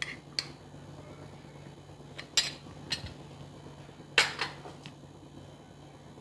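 A few light clinks and taps of kitchen utensils, the loudest about two and four seconds in, over a low steady hum.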